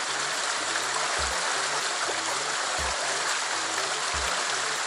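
Rushing water of a stream outflow churning steadily through a narrow rock channel, with faint low thuds about every second and a half.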